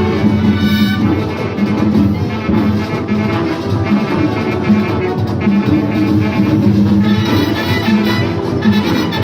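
A Latin big band playing salsa-style music, the brass section of trumpets and trombones prominent over the rhythm.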